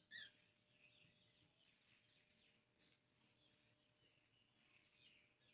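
Near silence with faint birds chirping now and then, one slightly louder chirp a moment after the start.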